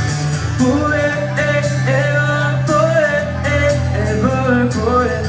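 Live pop music: a male singer's wordless vocal runs over a band with steady bass, guitar and a regular cymbal beat.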